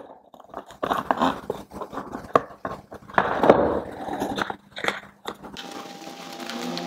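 Plastic upper timing-belt cover being handled and pushed into place on the engine: scattered clicks, knocks and rustling of plastic. A steady hum comes in near the end.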